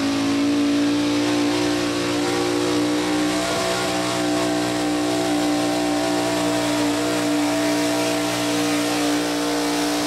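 Modified gas pulling truck's engine held wide open at a steady high rpm while it drags a weight-transfer sled, with a slight rise in pitch a couple of seconds in.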